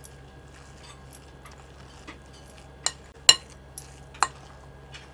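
A metal spoon stirring thick, coarse-ground chana dal batter in a glass bowl, mostly faint, with four sharp clinks of the spoon against the glass in the second half.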